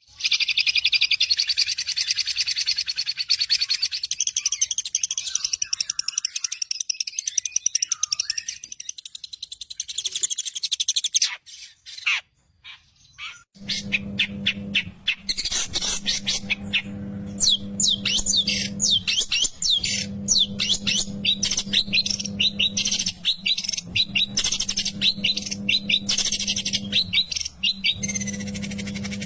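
Long-tailed shrike (cendet) singing its fast burst phrases ('tembakan'): a dense, rapid high chatter for about ten seconds, a short break with a few scattered notes, then a fast run of varied chirps and trills. A steady low hum sits under the second half.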